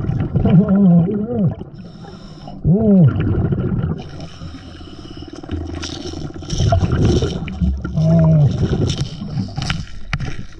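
Underwater sound of a scuba diver: breath bubbling out of the regulator, with three short muffled vocal tones from the diver that rise and fall in pitch. A couple of sharp clicks come near the end.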